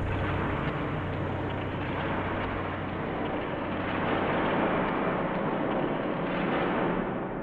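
A dense, steady rumbling noise with a low hum underneath, starting to fade away near the end.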